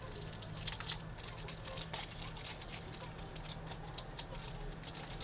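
Trading cards and their foil pack wrapper being handled, giving irregular light crackling and rustling.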